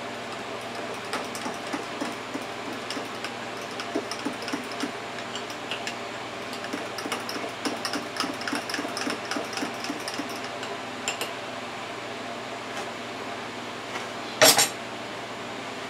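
A metal spoon stirring gravy mix in a ceramic mug, a run of rapid light clinks and scrapes that stops about eleven seconds in, then a loud clatter of a utensil near the end, over a steady hum.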